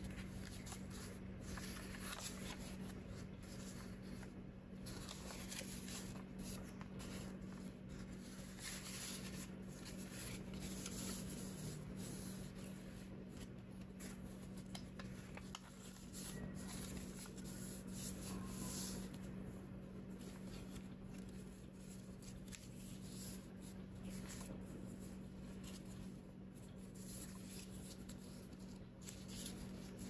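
Origami paper rustling and crinkling as it is folded and creased by hand, in many short crackly bursts, over a steady low hum.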